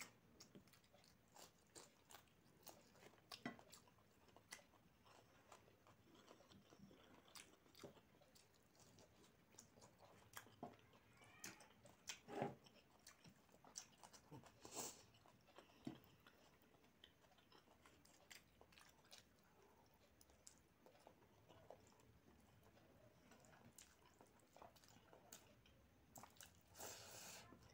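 Faint close-up chewing and mouth sounds of someone eating rice and curry by hand, with many small wet clicks and smacks scattered irregularly through.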